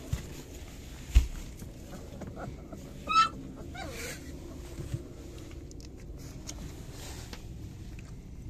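Three-week-old puppies squeaking and whimpering while nursing, with a high, wavering squeal about three seconds in and a lower falling whine just after it. A dull thump about a second in.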